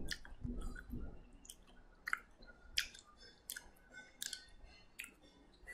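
Faint, irregular clicks and ticks, a dozen or so scattered over a few seconds against quiet room noise.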